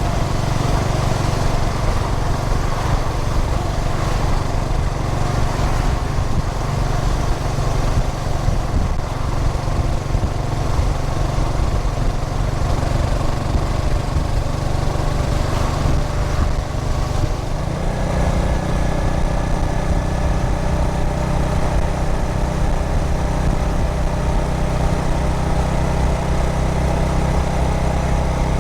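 Yamaha SR400's carburetted 400 cc air-cooled single-cylinder four-stroke engine running under way on the motorcycle, with road and wind noise. A little past halfway the engine note changes and settles into a steadier tone.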